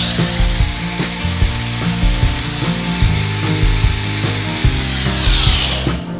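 Electric mixer grinder running at full speed, its blades blending pomegranate arils into juice, then winding down with a falling whine near the end. Background music plays underneath.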